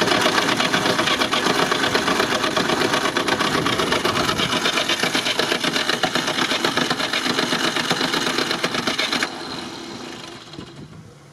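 Inline four-cylinder petrol engine running close up with the bonnet open, a dense, fast mechanical ticking clatter over the engine note. About nine seconds in the sound drops off sharply to a much quieter level.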